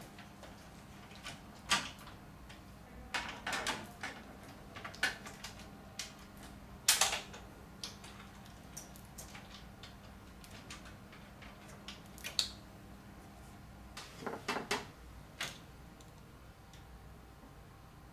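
Scattered sharp clicks and knocks of plastic and metal parts being handled and fitted inside a Kyocera KM-2550 photocopier while its paper feed sensor is replaced. A faint steady hum runs underneath and stops about fourteen seconds in.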